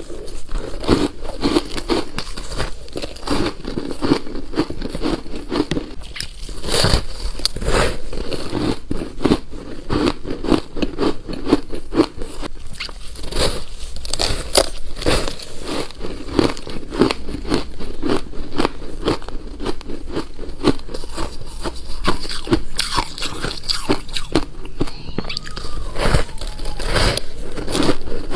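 Biting and chewing a slab of frozen shaved ice: rapid, continuous crunching.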